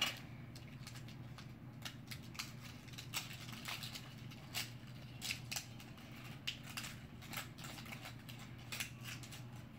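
Gold foil candy wrapper crinkling as it is peeled by hand off a round chocolate, in faint, scattered crackles, over a steady low room hum.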